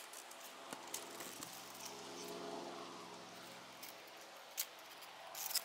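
Quiet outdoor background: a faint steady hum with a few small clicks and rustles, the sharpest clicks coming near the end.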